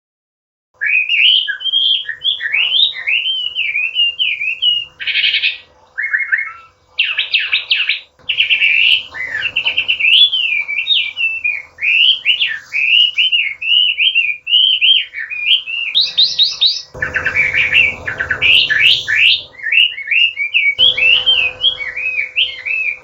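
Chinese hwamei singing a long, nonstop song of loud, varied whistled phrases that slide up and down. It is broken by a few short, rapid trills. The song starts about a second in and cuts off abruptly at the end.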